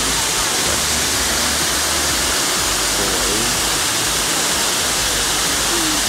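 Sai Yok Yai waterfall cascading over the rocks into the river: a steady, loud rush of falling water.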